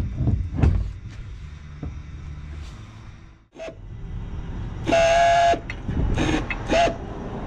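Knocks and clanks as a small outboard motor is handled on a boat's transom, then a high squeal lasting about half a second and two or three shorter squeaks while the outboard is carried.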